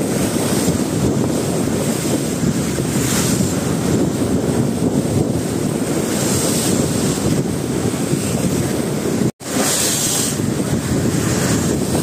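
Wind buffeting the microphone over the wash of sea waves along a ship's hull, a steady rush with swells of hiss about every three to four seconds. The sound cuts out for an instant about nine seconds in.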